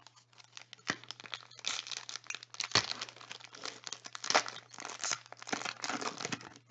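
Plastic wrapper of a Panini Prizm football card pack being torn open and crinkled by hand: a dense run of crackling and tearing, with sharper rips about one, three and four seconds in.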